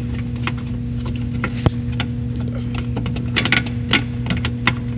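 Irregular light clicks and knocks of hands working a car headlight bulb loose from its housing, over a steady low hum.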